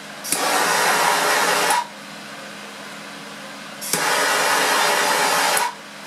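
Torch flame hissing in two bursts of about a second and a half each, a couple of seconds apart, as it is played on the bottom flask of a carbon monoxide generator to heat it gently.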